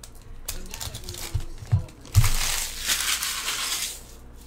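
A trading-card pack's foil wrapper crinkling and being crumpled, after a few soft knocks of handling.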